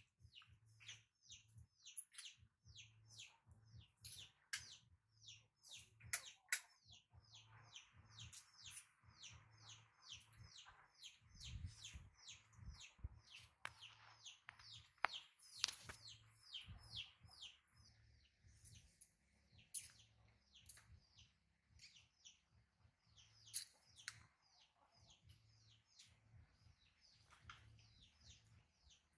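Faint, rapid series of short, high chirps, several a second, coming in runs with brief pauses, over a faint low hum.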